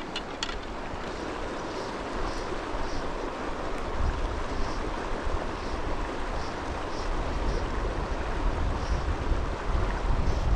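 Shallow mountain river running over a rocky riffle: a steady hiss of flowing water, with wind rumbling on the microphone, stronger from about four seconds in.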